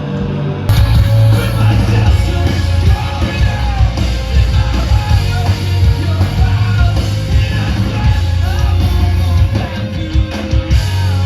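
Heavy rock band playing loud, with yelled vocals and pounding drums; the full band comes in hard about a second in.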